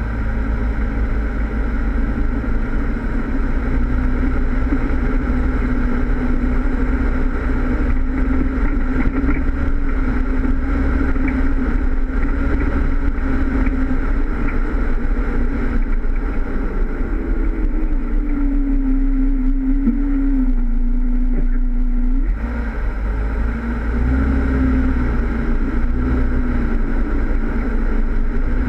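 Jeep Wrangler engine running as the Jeep drives, heard through a GoPro on the front bumper. Its pitch holds steady, climbs about 17 seconds in, settles back, and drops off briefly near 22 seconds before picking up again.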